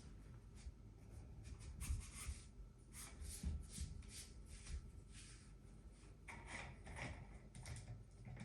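Faint handling noise from a travel tripod being worked by hand: scattered light clicks, taps and rubbing, a little busier in the last couple of seconds.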